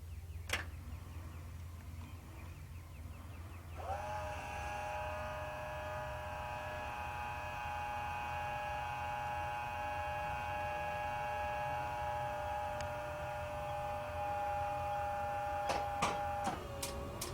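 Bell UH-1 Huey's electrical systems powering up before the turbine start: a steady whine switches on about four seconds in and holds. Near the end come a few switch clicks, the whine's pitch dips, and a rising whine begins as the starter engages.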